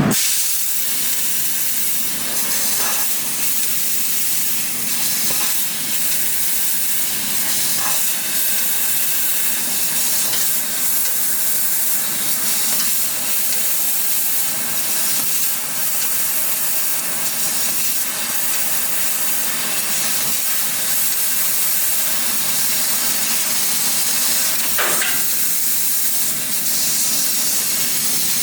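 12 kW fiber laser cutting machine cutting 6 mm stainless steel sheet: a loud, steady hiss from the gas jet and cutting head, with a few short sharper surges along the way.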